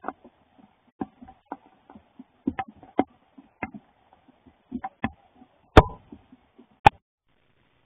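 Irregular sharp clicks and taps, a few a second at times, with two louder knocks near the end, over a faint steady hum.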